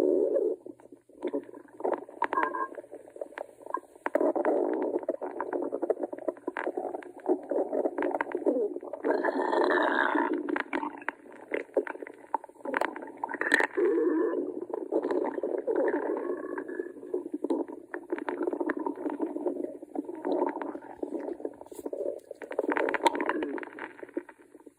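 A hungry stomach growling at length: irregular gurgling rumbles with many small clicks and pops, swelling louder and brighter a few times along the way.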